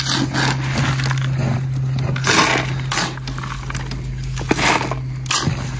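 Cooked particle bait (seeds, maize and pellets) being stirred and scooped in a plastic bucket with a hand and a small blade: repeated rustling scoops of the grains, over a steady low hum.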